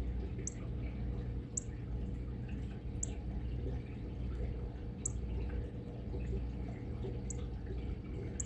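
Fish tank running: a steady low hum from its pump, with faint drips of water every second or so.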